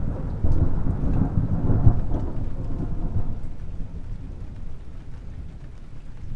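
Thunder sound effect: a deep rolling rumble with a rain-like hiss, loudest at first and slowly dying away.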